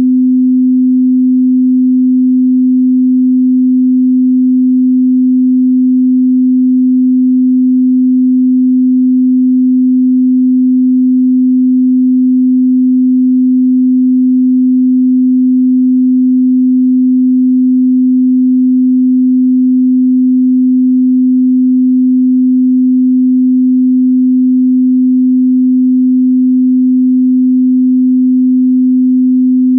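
Steady 255 Hz pure sine tone, a single unchanging low hum with no overtones, at constant loudness.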